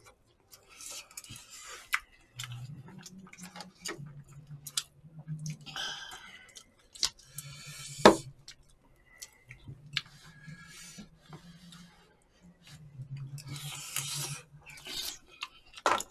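People eating close to the microphone: chewing and mouth sounds, with scattered clicks of spoons and chopsticks against plastic and foil food containers. The sharpest click comes about eight seconds in.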